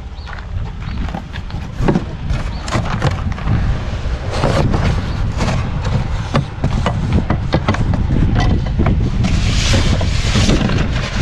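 Repeated knocks and clatters of things being handled and moved, over a steady low rumble. A rustling hiss comes about nine seconds in and lasts about a second.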